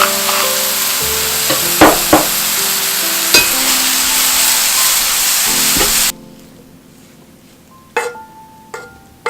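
Food sizzling as it is stir-fried in a pan, with a few sharp clicks of a utensil against the pan. About six seconds in the sizzle cuts off suddenly, leaving light plucked background music.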